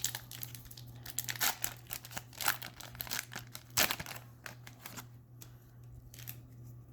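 Foil trading-card booster pack wrapper crinkling and being torn open, a dense run of crackles that thins out after about five seconds.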